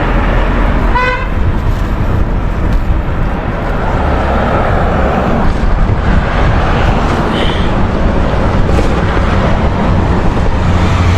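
Steady rumble of wind and road noise while cycling along a highway, with a short vehicle horn toot about a second in.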